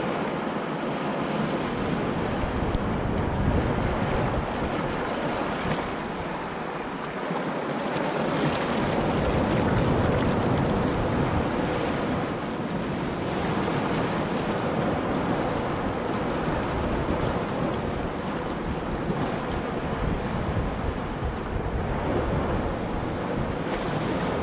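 Ocean surf breaking on a rocky beach, a wave washing up over the wet sand around the rocks and draining back, loudest about ten seconds in. Wind buffets the microphone.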